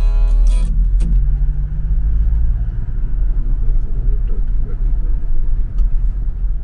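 Steady low road and engine rumble heard from inside a moving car. A brief pitched sound comes in the first second.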